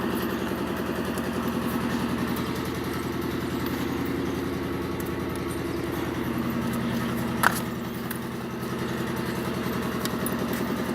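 An engine running steadily at idle with an even, rapid pulse, and one sharp click about seven and a half seconds in.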